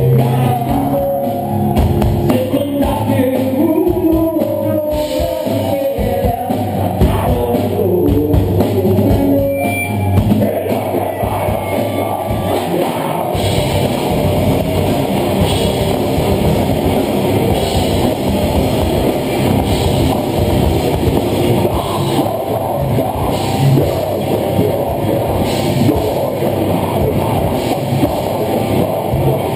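Live rock band playing loud, with electric guitars, drum kit and a singer. About thirteen seconds in, the band comes in harder and the sound turns into a dense, full wall.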